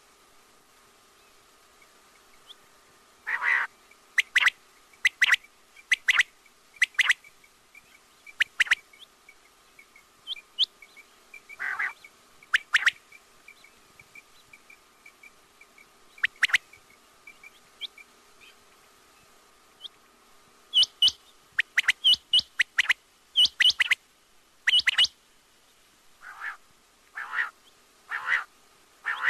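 Quail calling: short, sharp, repeated call notes, some single and some in quick runs, over a faint steady hum from the recording.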